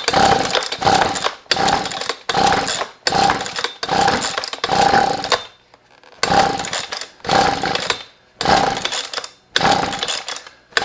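Husqvarna 125B leaf blower's two-stroke engine being cranked by its pull-cord recoil starter with the choke wide open: about a dozen quick pulls in two runs with a short pause between. The engine whirs with each pull but does not catch, a test for a flooded engine.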